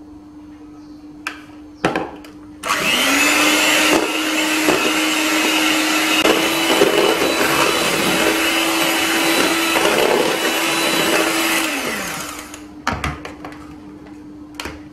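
Electric hand mixer running, its beaters whipping strawberry purée into whipped cream for a mousse. It spins up about three seconds in, runs steadily, and winds down near the end, with a few knocks just before it starts and one after it stops.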